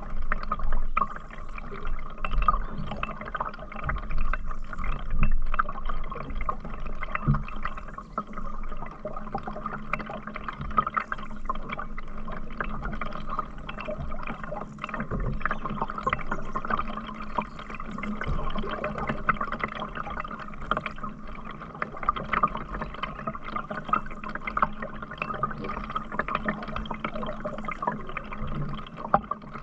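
Water sloshing, trickling and dripping around a canoe being paddled, with a few heavier splashes in the first several seconds.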